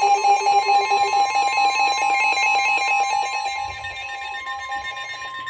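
Weather radio warning alarm: a steady high electronic tone with a fast pulsing alarm beep over it, the beeping fading away near the end while the steady tone holds on.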